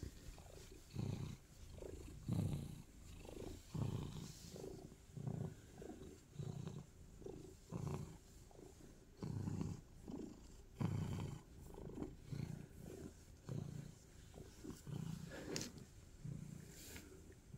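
Domestic cat purring close up while being stroked, a low rumble that swells and fades with each breath, about every second and a half.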